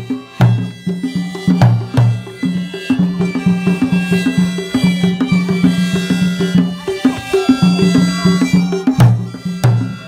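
Traditional-style music: sustained pitched tones over a repeating bass pattern, punctuated by a few loud drum strokes.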